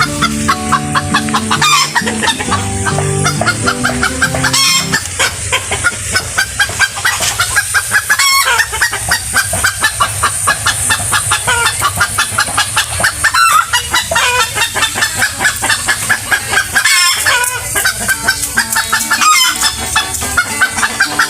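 Birds calling in rapid, repeated notes.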